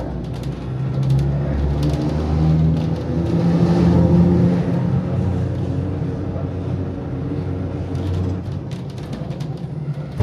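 An electric tram running, with the steady, pitched hum of its motor and gearing. It grows louder to a peak about four seconds in, then eases off.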